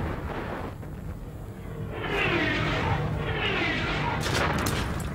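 Artillery shells whistling in, two falling whistles one after the other, followed near the end by several sharp blasts, over a low steady rumble of bombardment.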